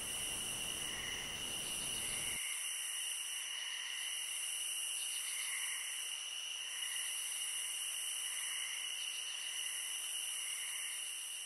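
Steady high-pitched insect chorus with a soft pulsing about once a second. A low rumble underneath cuts off about two and a half seconds in.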